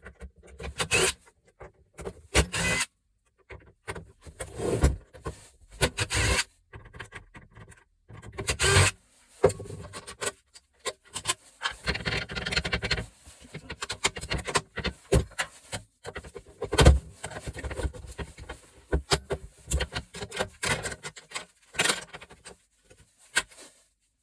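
Gas stove being dismantled by hand: irregular knocks, clinks and rubbing of its metal parts as they are handled and pulled apart, with a stretch of denser scraping about twelve seconds in.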